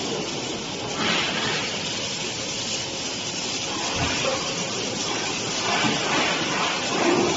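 Wire-fed gas-shielded arc welding on an automatic pipe-flange circular seam welder: a steady hiss from the welding arc, growing stronger about a second in.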